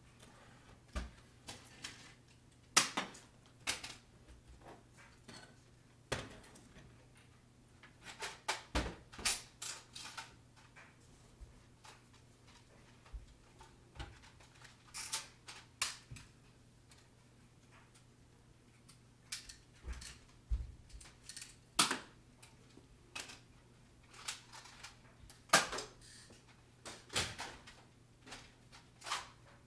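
Irregular sharp clicks and knocks, some in quick runs of several, over a faint steady low hum.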